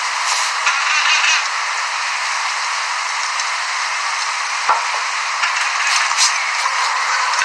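Steady hiss of noise, like static, with a few scattered clicks.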